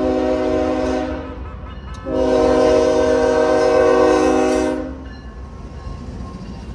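GE ES44AC diesel locomotive's air horn sounding two long blasts for a grade crossing, a short gap between them, the second stopping about five seconds in. Under and after the horn, the low rumble of the locomotive passing close by.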